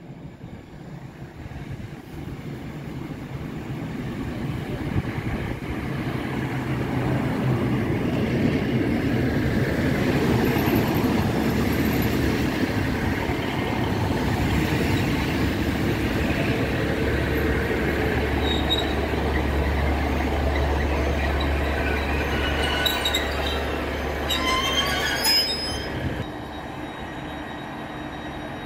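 Class 150 Sprinter diesel multiple unit arriving: its underfloor diesel engines and wheels on the rails grow louder over the first several seconds as it runs in close past the platform. Brakes squeal in a few rising squeals as it draws to a stop, after which the unit settles to a steadier, quieter running sound at a stand.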